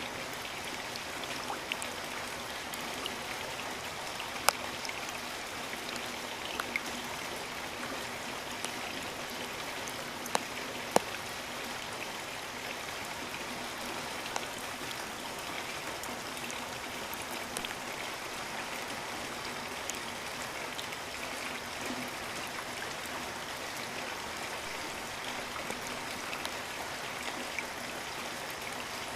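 Steady rain falling, an even hiss of many drops, with a few single drops striking sharply and louder than the rest, mostly in the first dozen seconds.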